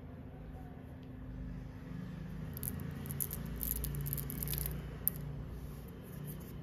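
Small hard white candies clicking lightly against each other in a cupped hand and tipped out onto a felt mat, with one sharper tick about five seconds in. A low steady hum lies underneath.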